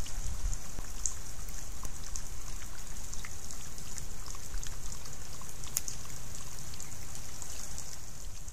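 Coyote lapping water from a small pond: irregular wet ticks over a steady high-pitched hiss.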